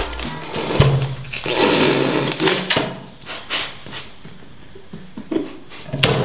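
Muffled hums and breathy noise from a man whose mouth is stuffed full of mini marshmallows. There is a low hum about a second in and again near the end, with a longer rush of breath in between.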